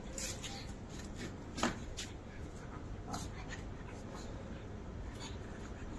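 A pug sniffing about at ground level, with a few short, sharp noises scattered through, the loudest about one and a half seconds in, over a steady low background hum.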